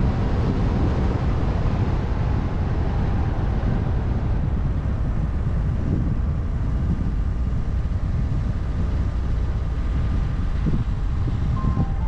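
Steady low rumble of a car driving along a road: tyre and engine noise at an even level.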